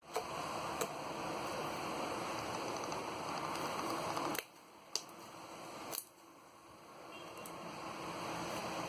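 Hands squishing and handling a homemade slime, with a few sharp clicks or pops. The sound stops abruptly about four seconds in and builds again toward the end.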